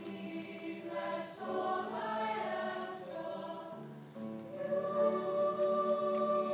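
Choir singing a slow piece in held chords, heard from the audience seats of an auditorium; about four seconds in the singers move to a new, louder chord and sustain it.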